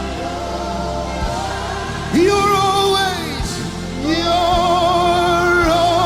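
Slow gospel worship music: a steady sustained backing with a lead melody that holds two long notes with vibrato, the first beginning about two seconds in and the second about four seconds in.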